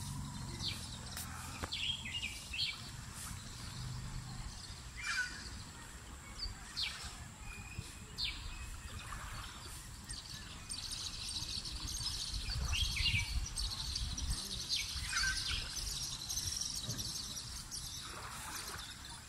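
Outdoor birdsong ambience: scattered short chirps and calls of small birds, thicker twittering in the second half, over a steady low background rumble.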